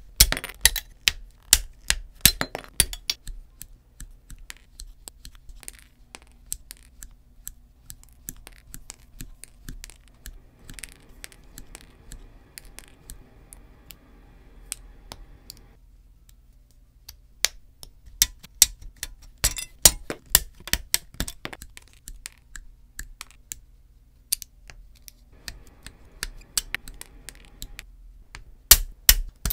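Sprue cutters snipping plastic parts off a model-kit runner, then small plastic parts being pressed and snapped together by hand. The sound is a run of sharp clicks in clusters, densest near the start, around two-thirds of the way through, and near the end.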